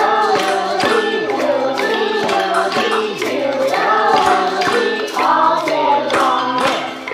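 A group of young children singing a song together, with kitchen utensils struck as percussion in a steady beat. The music dies away just before the end.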